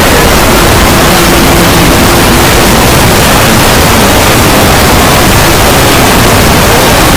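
Extremely loud, heavily distorted noise pushed to the limit of the recording, typical of an ear-rape meme sound effect. Faint steady tones show through in the first couple of seconds, then fade into the noise.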